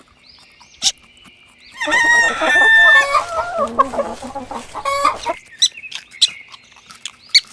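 Chickens clucking with short sharp calls, and a rooster crowing once: one long call of about three seconds in the middle.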